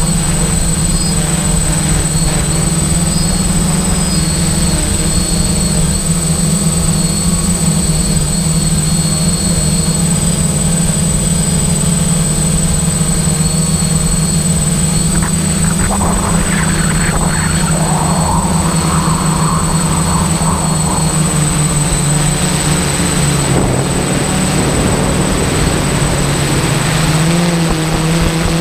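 An engine running steadily at a constant pitch. Its pitch dips a little about two-thirds of the way through, then rises again near the end.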